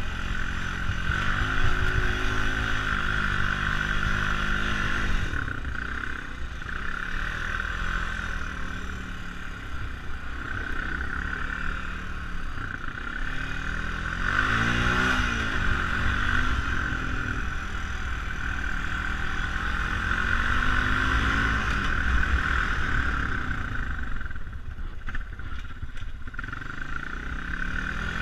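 ATV engine running under way over snow, its pitch rising and falling with the throttle, with one clear rev up and back down about halfway through.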